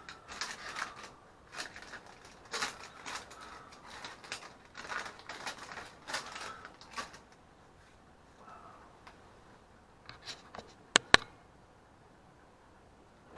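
Clear plastic parts bag crinkling and rustling in irregular bursts as it is handled, fading off after about seven seconds. About eleven seconds in come two sharp clicks close together, the loudest sounds.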